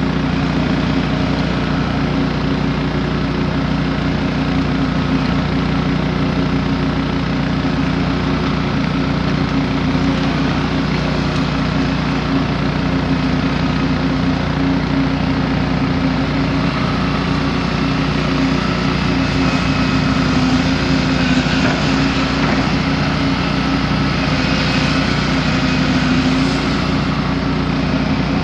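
Volvo excavator's diesel engine running steadily, slightly louder for a few seconds about two-thirds of the way through.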